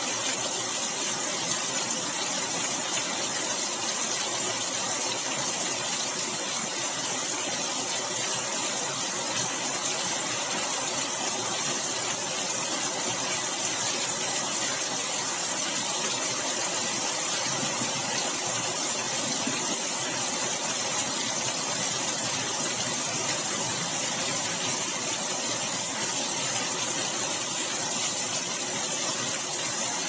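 Heavy storm rain pouring down in a steady, even hiss.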